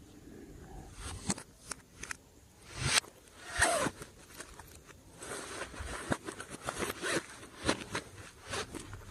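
Hands working glossy slime: irregular sharp clicks and short noisy bursts, the loudest about three and three and a half seconds in.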